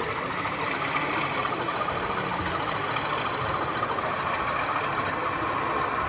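Steady diesel engine sound from sound-fitted model Class 37 locomotives running on a model railway layout, played through the models' small onboard speakers.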